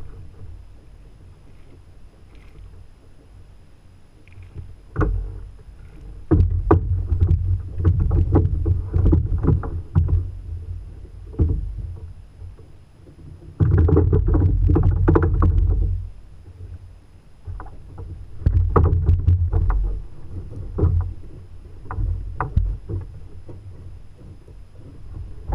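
Knocks, bumps and water sloshing on a fishing kayak as the angler lands and handles a small hooked fish. The sounds come in loud bursts with sharp clicks after a quiet first few seconds.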